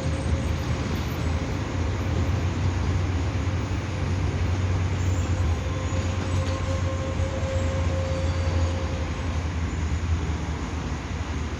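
Grain freight train rolling by with a steady low rumble of wheels on the rails. A faint thin squeal fades in and out.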